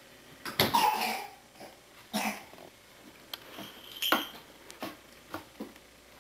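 A toddler's short, loud squealing outburst about half a second in, followed by a few shorter vocal bursts and light clicks and knocks from the toddlers playing.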